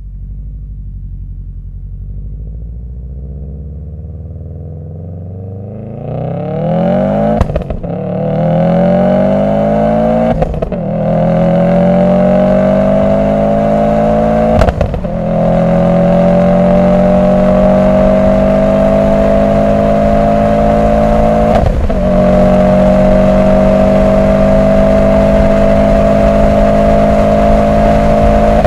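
2011 Subaru WRX STI's turbocharged flat-four through a Cobb downpipe and Cobb cat-back exhaust, pulling hard at wide-open throttle. It starts as a low rumble, then about six seconds in the note gets louder and climbs in pitch through the gears. It breaks and drops back at four gear changes and keeps rising to the end.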